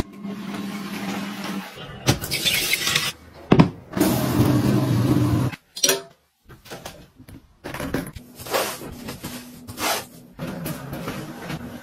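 A string of short household handling sounds. A portable bucket washing machine's small motor runs with a steady hum at the start. Then come rustling, clicks and knocks as clothes hangers are handled, and a fabric organiser is pushed into place.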